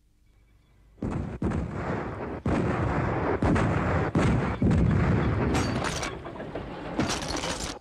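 A run of loud booms and crashing blasts, starting suddenly about a second in, with fresh blasts every half second to a second, and cutting off abruptly near the end.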